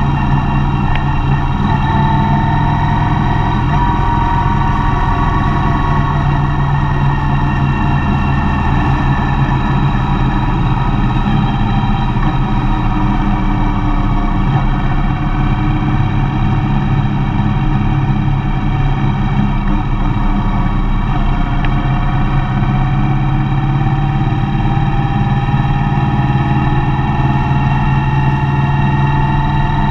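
A vehicle driving steadily: the engine runs at an even pace under constant road and tyre noise. A faint whine slowly rises and falls in pitch as the speed changes.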